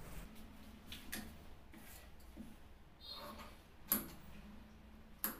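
Tailor's shears cutting shirt fabric: a few faint, crisp snips, the sharpest about four seconds in and another just before the end, with the cloth rustling as it is handled.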